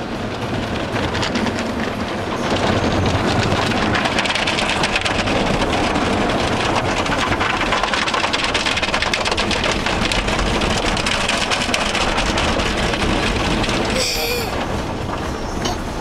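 Automatic car wash heard from inside the car: water spraying and washing over the car's body and windows, a loud, steady rushing noise that grows louder about two and a half seconds in. A brief, sharper sound cuts through near the end.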